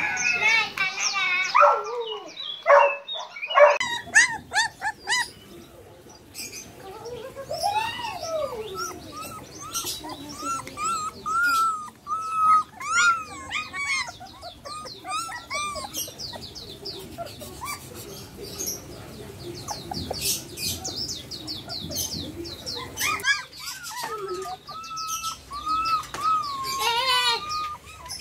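Young Samoyed puppy whining and squeaking over and over in short, high calls that rise and fall in pitch.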